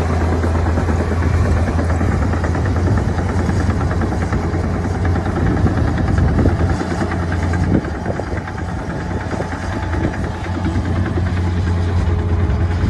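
Komatsu D61EX bulldozer's diesel engine running steadily with a deep hum, easing off a little for a couple of seconds around the middle.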